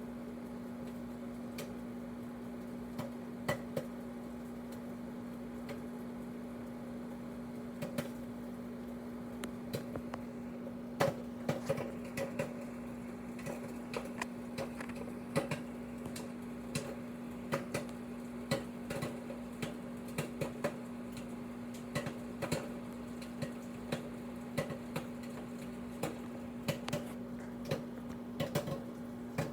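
Microwave oven running with a steady hum while popcorn pops inside it. A few scattered pops come at first, and from about ten seconds in the pops come more and more often.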